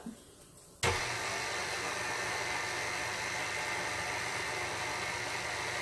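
KitchenAid Artisan stand mixer switched on about a second in, its motor then running steadily with a whine while the beater stirs a light mix of warm water and yeast.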